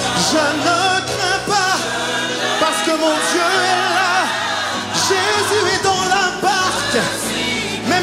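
Live gospel worship song: a male lead vocalist sings in French with vibrato over a band, joined by backing singers.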